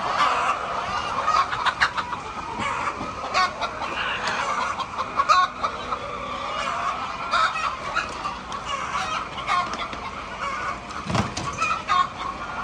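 A flock of laying hens clucking together in a dense, continuous chatter, with many short sharp clicks through it. There is a single dull thump about eleven seconds in.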